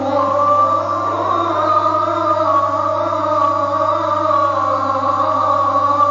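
A single man's voice chanting in the Islamic style, drawing out long melodic notes whose pitch slowly bends and turns, with a steady low hum beneath.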